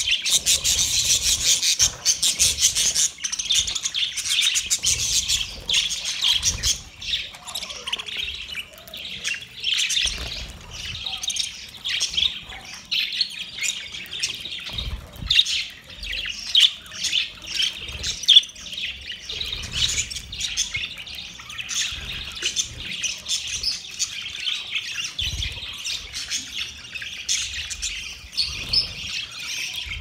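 A flock of budgerigars chattering, with many quick overlapping chirps, busiest in the first few seconds.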